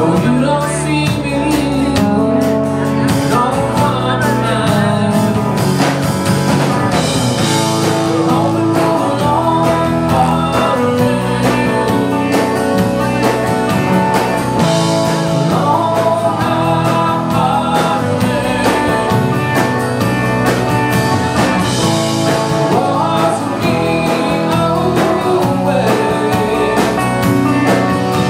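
Live country-rock band playing: a male voice singing over strummed acoustic guitar, electric guitar and drums.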